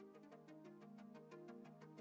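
Faint background music: held synthesizer-like notes over a light ticking beat, about four ticks a second.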